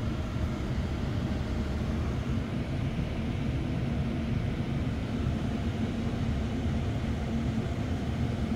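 A 3.0-litre twin-turbo inline-six idling, heard from inside the pickup's cab as a steady low hum.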